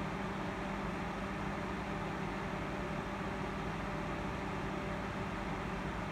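Small electric desk fan running: a steady whir with a low, even motor hum.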